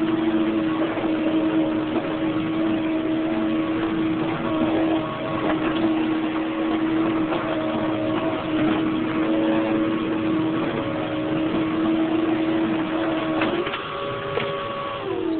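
Hoover Z700 vacuum cleaner running steadily, its motor giving a loud whine over the rush of air. Near the end the pitch steps up, then starts to fall.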